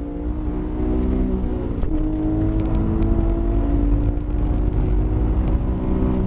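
Porsche GT3 RS flat-six engine heard from inside the cabin, pulling hard at high revs under full acceleration. Its pitch climbs, drops once at an upshift about two seconds in, then climbs again.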